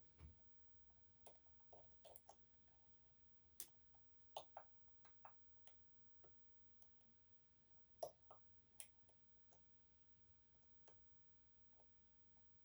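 Faint, irregular metallic clicks and ticks of a short hook pick and tensioner working the sliders inside an EVVA 3KS high-security lock during picking.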